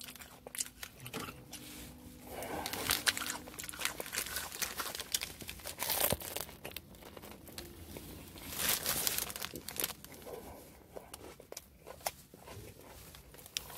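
Paper sandwich wrapper crinkling and rustling as it is handled, in irregular crackly bursts, loudest about three, six and nine seconds in.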